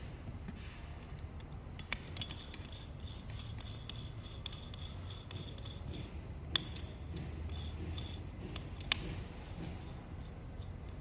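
Handling noises as a drill bit is taken out of its plastic packaging: a few sharp clicks and light clinks, spread out, over a low hum.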